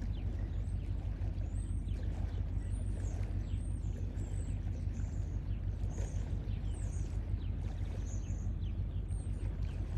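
A steady low outdoor rumble, with short, high bird chirps recurring every second or so.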